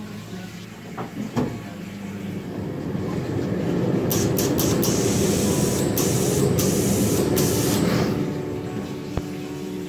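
Steam iron pressing a seam on fabric: two knocks about a second in, then spurts of steam hissing for about four seconds in the middle over a steady low rumble.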